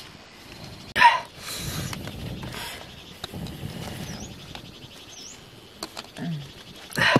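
Raw eggs being set into a hollowed watermelon half by hand: a sharp knock about a second in and another near the end, with a few small clicks and some rustling between. A faint steady insect trill runs underneath.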